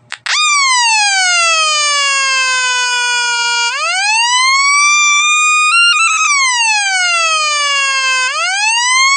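Electronic police-siren tone from a two-555-timer siren circuit through a small speaker. A buzzy pitch glides slowly down for about three seconds, then sweeps quickly back up, twice over, with a brief stutter near the top about six seconds in.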